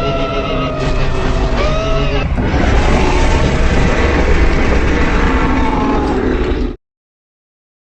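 Designed sea-monster call layered from whale, walrus and leviathan sound effects: a pitched, moaning call with several bending tones, changing about two seconds in to a deep, noisy rumbling call that cuts off suddenly near seven seconds, followed by dead silence.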